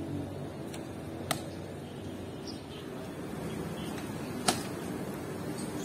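Two sharp clicks, about a second in and again near four and a half seconds, the second the louder, over steady background noise.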